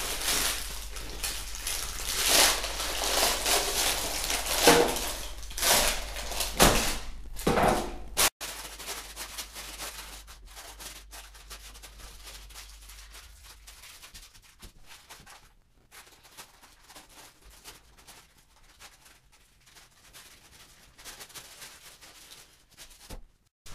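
A freshly baked loaf being worked out of its baking tin: rustling baking paper and a few knocks against the tin and board, loudest over the first eight seconds or so. Then quieter crinkling as the baking paper is peeled off the loaf.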